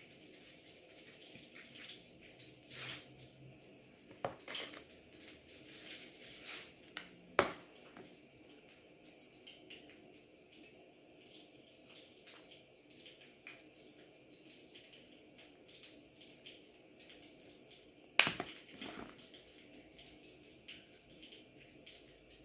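Scattered clicks and knocks of spice containers being handled and set down on a kitchen counter, with a few brief soft rattles of seasoning being shaken out. Two sharper knocks stand out, one about seven seconds in and a louder one about eighteen seconds in.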